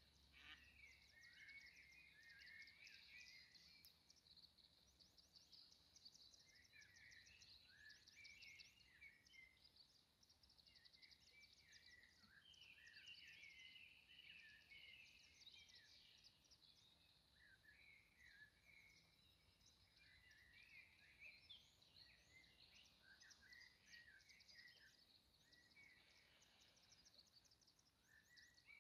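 A faint chorus of small birds chirping and twittering in short, overlapping phrases, over a high, rapid trilling that runs on without a break.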